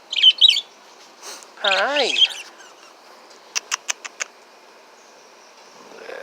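Caged pet birds chirping: a quick flurry of high chirps at the start, then a rapid run of about six short, sharp calls a little past the middle.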